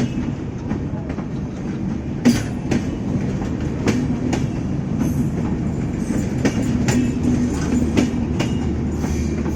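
Passenger train running along the track: a steady rumble with the clickety-clack of wheels knocking over rail joints, sharp clicks coming unevenly about once or twice a second.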